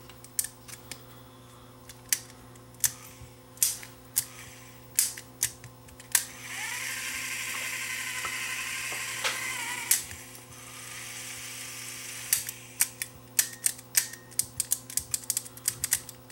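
Tiny drive motor of a Sony WM-10 cassette Walkman whirring. It starts about six seconds in, cuts out near ten seconds, and runs again more faintly for a couple of seconds. Before and after, there are many small sharp clicks as the switch contacts and mechanism are pressed by hand. The motor runs only in fits because the switch contacts are not making a good connection.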